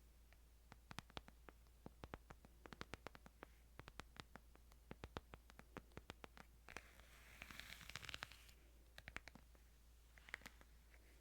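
Faint ASMR tapping and scratching on a Bible: many quick, sharp clicks in an uneven patter, with a short rustling swish about seven seconds in.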